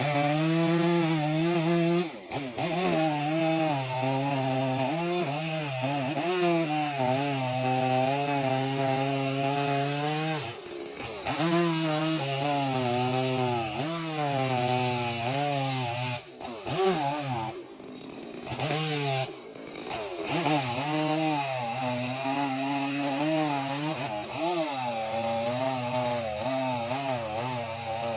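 Chainsaw engine running hard while cutting wood, its pitch rising and sagging as the chain works under load, with a few short drops where the throttle eases off.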